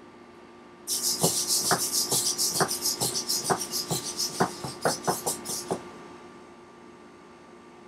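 The Tower Pro MG90S micro servos of a six-legged robot buzz in quick bursts as it walks through a turn. Its feet tap on the wooden floor about twice a second. The sound starts about a second in and stops about six seconds in.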